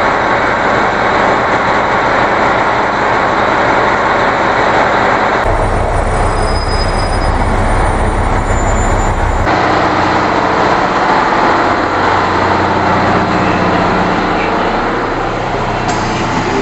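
KiHa 183 series diesel railcars idling, a steady loud engine rumble and hum that changes abruptly twice, about five and nine and a half seconds in.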